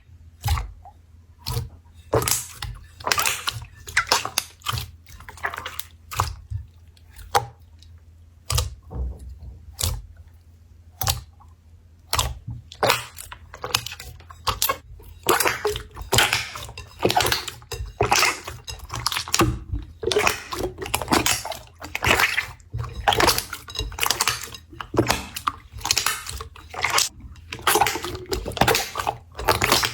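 Hands pressing, poking and stretching slime, making irregular sticky clicks and squishes that come thicker and faster after about fifteen seconds.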